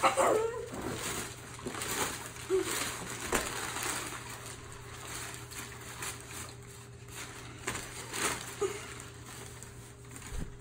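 Crumpled brown packing paper crinkling and rustling as it is dangled and shaken and a kitten bats at it, in many short crackles that are loudest in the first few seconds.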